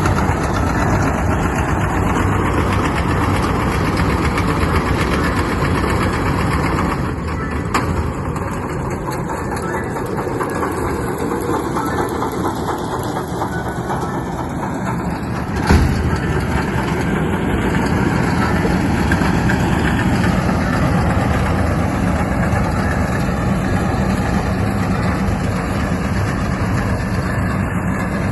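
Steyr Kompakt tractor engine running steadily under a baling load, with a slight drop in level for a few seconds in the middle and a single sharp knock about 16 seconds in.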